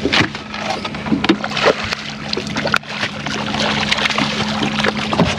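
A boat's motor humming steadily at low pitch, with irregular splashes, knocks and clicks of water and gear around the boat.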